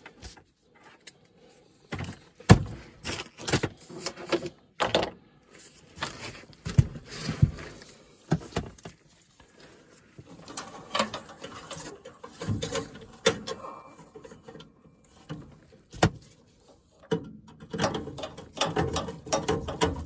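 Irregular clicks, knocks and rustling of gloved hands handling and fitting a replacement furnace igniter and its bracket into the burner compartment, the sharpest knock about two and a half seconds in.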